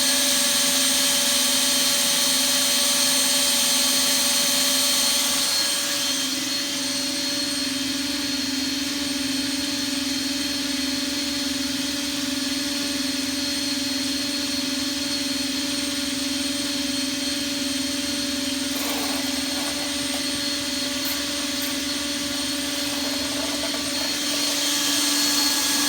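A power drill spinning a drill-driven impeller transfer pump with a steady whine, pumping standing water out of the sump of a dishwasher that won't drain. About six seconds in it turns slightly quieter and a touch higher in pitch, and it gets louder again near the end.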